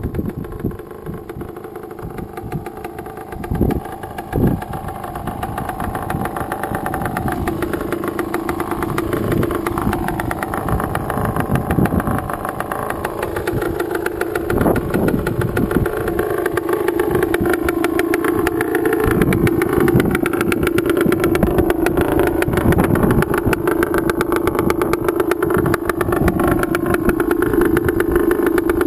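Dirt bike engine idling steadily, growing louder as it is approached, with irregular knocks in the first half.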